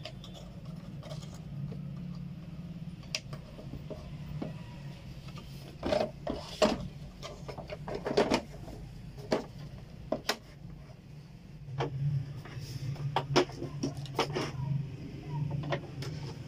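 Irregular clicks and knocks of an electronic weighing scale's plastic housing and parts being handled and fitted back together, over a steady low hum.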